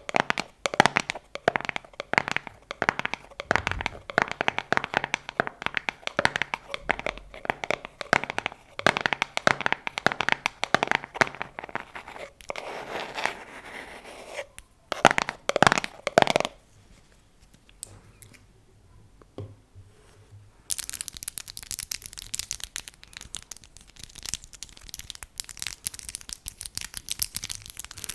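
ASMR tapping on objects: rapid, dense taps for about the first twelve seconds, a short rustle and a few heavier strokes, then a quieter pause. About two-thirds of the way through, a dense crackling, crinkly scratching starts and keeps on.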